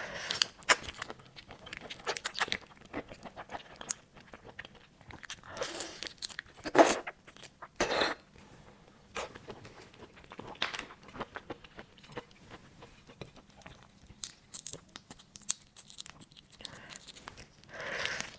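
Eating whole red prawns by hand: shells cracking and tearing, wet sucking at the prawn heads, and chewing, with a few louder sucks around six to eight seconds in and again near the end.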